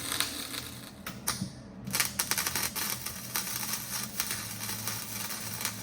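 Electric arc welder crackling and sizzling as a broken motorcycle taillight bracket is welded, with a short pause about a second in before the arc strikes again.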